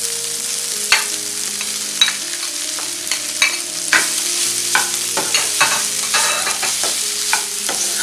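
Crumbled paneer frying with onion-tomato masala and peas in a non-stick pan, sizzling steadily. A plastic spatula scrapes and taps against the pan in about a dozen separate strokes as the paneer is stirred in.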